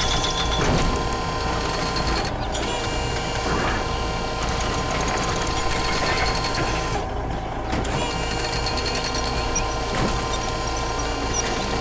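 Construction-vehicle engine sound effect running steadily with a fast mechanical rattle.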